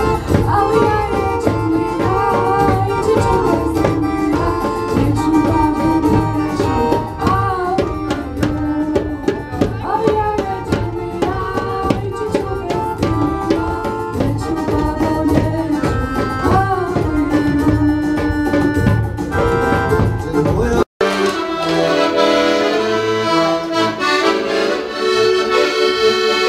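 A live band playing: drum kit, keyboard and a woman singing. About twenty seconds in it cuts off abruptly and a piano accordion plays alone.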